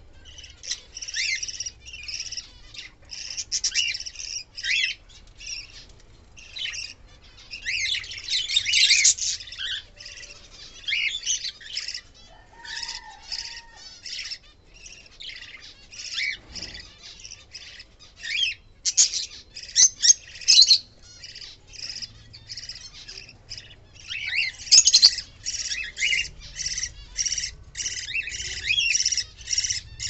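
Budgerigars chirping and chattering without pause, many short calls overlapping, with runs of quick repeated chirps near the end.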